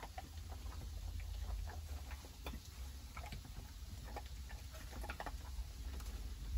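An American Staffordshire terrier crunching dry kibble from a collapsible silicone bowl: a quick, irregular run of small crunches and clicks as she chews and noses through the pellets.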